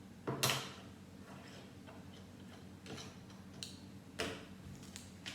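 Lego plastic bricks and plates clicking as they are handled and pressed together. There are a few sharp clicks, the loudest about half a second in and just after four seconds.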